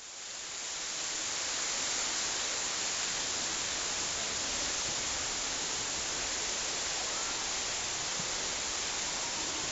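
Steady, even rushing of water, fading in over about the first second.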